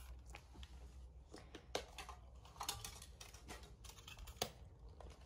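Faint handling noise as an Instax Mini 8 camera is lifted off a table and things are moved about: a few scattered light clicks and knocks over a low steady hum.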